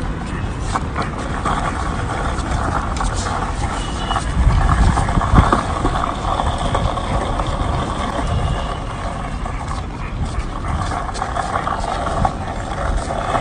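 Skateboard wheels rolling over paving stones: a steady rough rumble that swells to its loudest about five seconds in.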